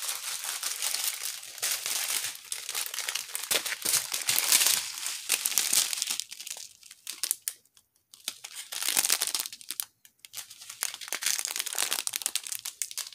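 Small plastic bags of diamond-painting drills crinkling and rustling as they are handled and pulled from their bundle. The sound stops briefly twice in the second half.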